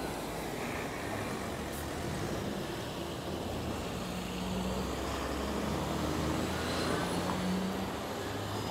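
Road traffic: a motor vehicle's engine running with a steady low hum that swells a little in the middle, over general city street noise.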